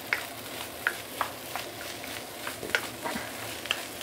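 Fried rice sizzling in a nonstick wok over medium-high heat while a wooden spatula stirs and tosses it, with irregular light scrapes and taps of the spatula against the pan.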